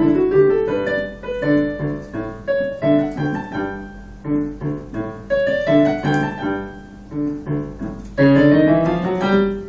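Digital piano playing a Grade 4 ABRSM exam piece: a melody of separate notes over short repeated bass chords, then a louder passage of rising notes near the end.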